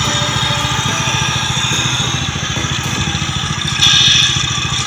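Diesel truck engine sound, idling with a fast, even chugging, and a brief louder burst of hiss about four seconds in.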